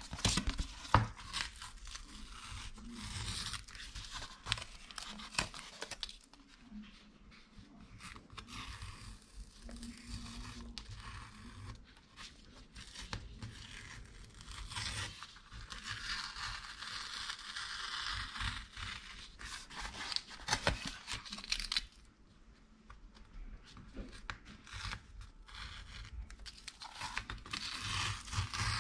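Strips of 50 mm masking tape being peeled off a wooden panel coated in dry acrylic paint: a dry tearing rasp that comes in several bouts, with small crackles as the tape lifts.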